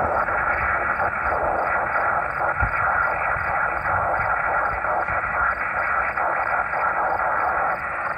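Steady single-sideband receiver hiss from a Yaesu portable transceiver in USB mode, used as the 144 MHz tuning radio for a 10 GHz station. The operator is tuning slowly while listening for replies to a call. The rushing noise is cut off sharply above about 2.7 kHz.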